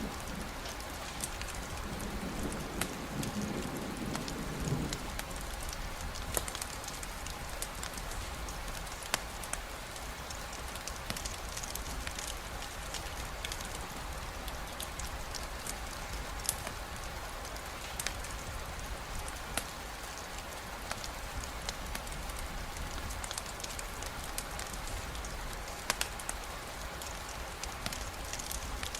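Steady rain falling, with scattered sharp drop taps throughout. A low rumble underneath dies away about five seconds in.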